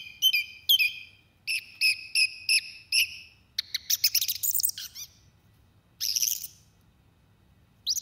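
Song thrush song sung by a human and sped up to bird speed, so that it sounds like a song thrush. Bright whistled notes come in short phrases, each phrase repeated several times, with short gaps and a longer pause near the end.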